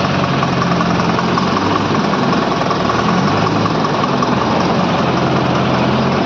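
ACE AX 124 backhoe loader's diesel engine running steadily, its pitch shifting only slightly.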